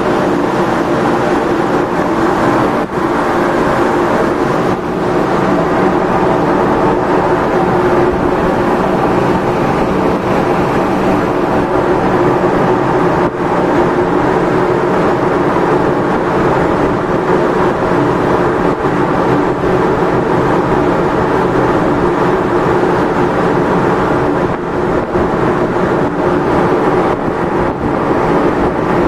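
Ship's engines and deck machinery running, a loud, steady drone with a constant hum of several tones, mixed with rushing air and water.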